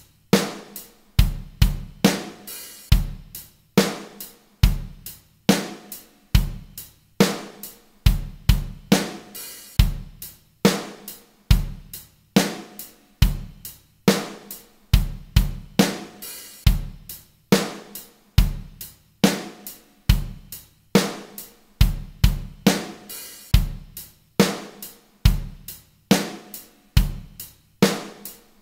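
Drum-kit loop in 4/4 at 70 BPM, with kick drum, snare and hi-hat playing the same steady beat bar after bar. It serves as a practice backing track in place of a metronome click.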